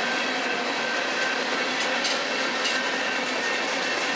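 Freight cars of a long manifest train rolling past at speed: a steady rush and clatter of steel wheels on the rails, with a thin steady whine above it.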